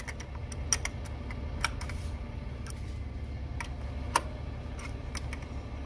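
Scattered light metallic clicks from an adjustable wrench working a nut on the skiving machine head's threaded adjusting rod, roughly one a second, the sharpest about four seconds in. Under them runs a low steady rumble.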